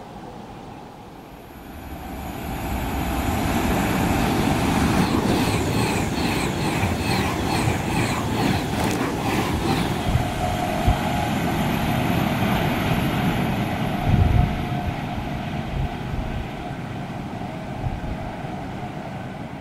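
Avanti West Coast Class 390 Pendolino electric train passing at speed: a rush of wheel and air noise builds about two seconds in, with a fast, regular clicking from the wheels for several seconds, a single thud later on, then slowly fading.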